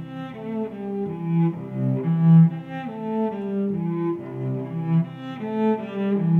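Background music: a melody of low bowed strings, cello-like, moving from note to note about every half second.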